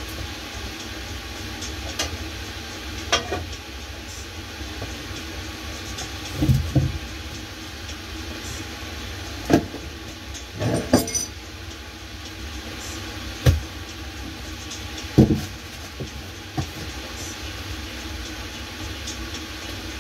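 Kitchen food-prep sounds: about eight scattered knocks and clunks of a raw chicken, pots and utensils being handled, over a steady low rumble.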